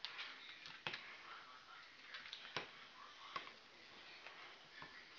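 A utensil scraping and clicking against a glass baking dish as a thick melted-candy mixture is stirred. It is faint and irregular, with a few sharp clicks.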